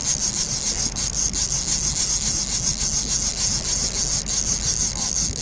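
Fishing reel's drag giving line to a running white sturgeon, a continuous high-pitched rasping buzz of rapid ticks.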